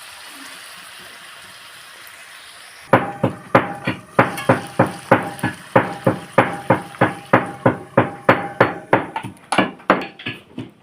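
Steady sizzling hiss of food frying, then, about three seconds in, a run of rapid, even strikes, about three a second, each with a faint ring.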